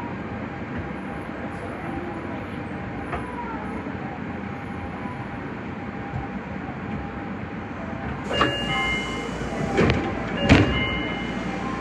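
Subway train stopped at a station with its doors closing: about eight seconds in a signal sounds with a few steady tones, then two heavy thuds a little over a second apart as the sliding doors shut.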